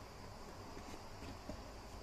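Faint handling noise from a toy RC car being held against its cardboard box: light scuffs and small taps over a steady low hiss, with one slightly sharper click about one and a half seconds in.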